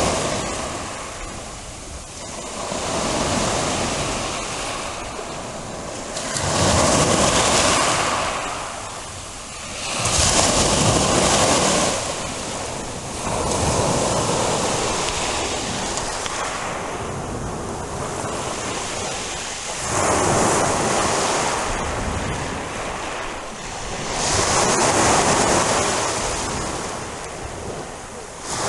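Sea waves breaking and washing on the shore, the surf swelling and fading every few seconds.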